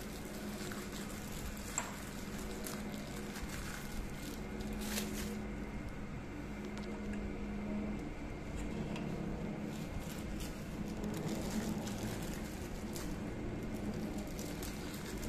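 Faint handling noise as microscope eyepieces are fitted into the binocular head: light clicks and rustling, with a sharp tick about two seconds in, over a steady low hum.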